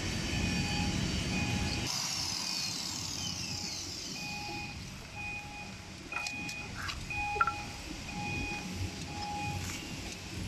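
Electronic beeper sounding short, evenly spaced beeps, about one every three quarters of a second, each on two pitches at once, like a vehicle's reversing alarm. A low rumble under the beeps drops away about two seconds in, and a few clicks come later.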